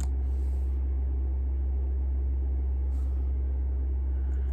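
A steady low hum throughout, with two faint, brief rustles near the start and about three seconds in.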